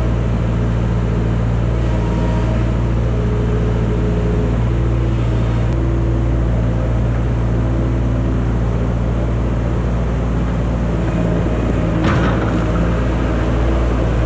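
Skid steer engine idling at a steady speed, with a brief rushing noise near the end.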